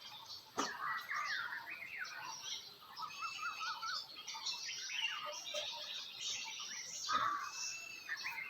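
Several songbirds chirping and singing at once, with overlapping short chirps, rapid trills and gliding whistles. A sharp click sounds about half a second in.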